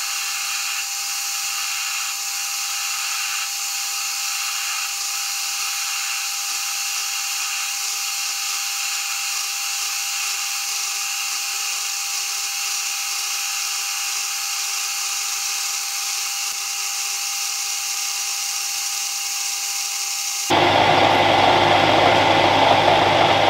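Mini lathe running with a steady motor whine while a parting tool cuts off a metal bar in the spinning chuck. About twenty seconds in, the whine gives way abruptly to a louder, rougher machine noise.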